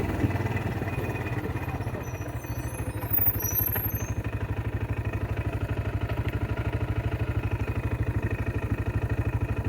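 An ATV engine running at idle, with an even, rapid pulse. There is a brief louder knock about three seconds in.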